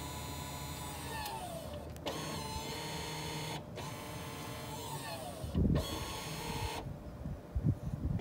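Electronic parking brake motor on an Audi A3's MQB rear caliper whirring as it clamps the brake on, commanded from a diagnostic app. The whine breaks off briefly a few times, drops in pitch twice and stops about seven seconds in, with the brake engaging normally; a few low thumps near the end.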